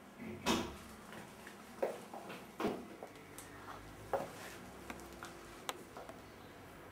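Irregular soft knocks and clicks over a faint steady hiss, the loudest about half a second in and the rest spaced unevenly, at most a couple a second. They are footsteps and handling knocks from a person walking with a handheld camcorder.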